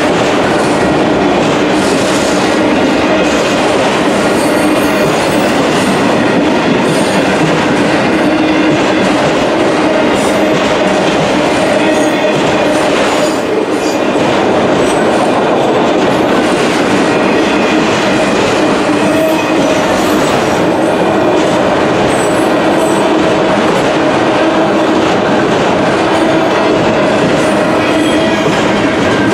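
Union Pacific manifest freight train's cars rolling past at speed: a loud, steady noise of steel wheels on rail with a steady hum running through it.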